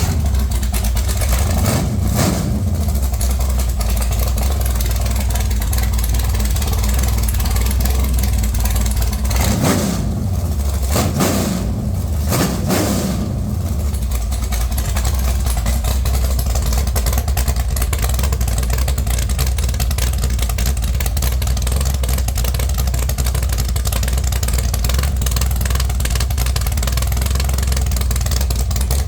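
Mopar 408 stroker small-block V8 running on open headers with no mufflers, just after starting. It is revved up and back down about four times in the first half, then settles to a steady idle.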